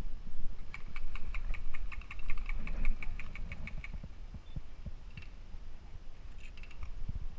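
Wind rumble on the camera microphone and footsteps on pavement. About a second in, a burst of airsoft gunfire begins: a rapid, even string of clicks, roughly eight to ten a second, lasting about three seconds. A few shorter, fainter bursts follow later.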